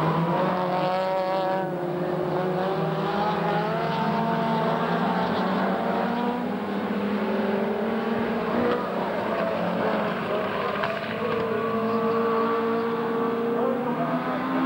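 A pack of small saloon race cars racing together, several engines running hard at once, their notes rising and falling through gear changes and corners.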